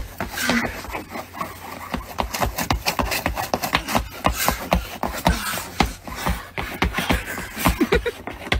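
Shoes scuffing, scraping and stamping on icy concrete as a man keeps slipping and catching himself: rapid, irregular scrapes and stomps, several a second.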